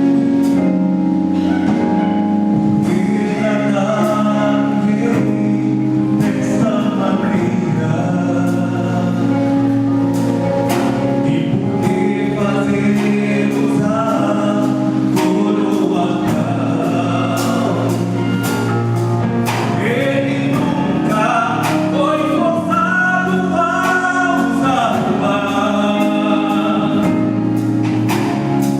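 Christian gospel song: voices singing over a band, with sustained low notes and a regular drum beat.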